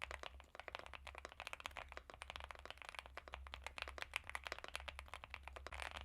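Fast typing on a Leobog Hi75 mechanical keyboard with Gateron EF Curry switches: a dense, continuous stream of creamy keypress clacks, with a quicker flurry near the end.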